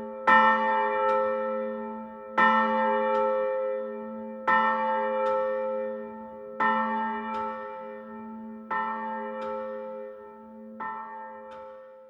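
A single church bell tolling: six strikes about two seconds apart, each followed by a lighter second tap and long ringing. The strikes grow gradually quieter.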